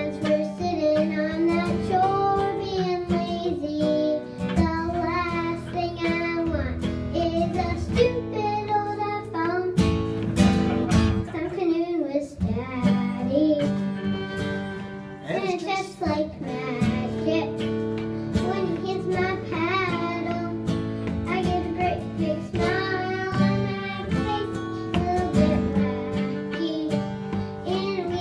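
A six-year-old girl singing, backed by a strummed acoustic guitar and a bowed fiddle.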